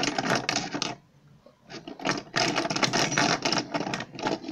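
A hand rummaging through a pile of fidget spinners, the spinners clattering and rattling against each other. It comes in two spells with a short pause about a second in.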